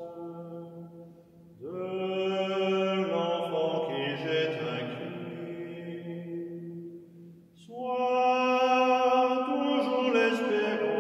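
A man singing a slow Czech folk melody solo with French words, in long held notes, pausing for breath about a second and a half in and again near the middle; a low tone lingers through the pauses, and the sound carries the church's echo.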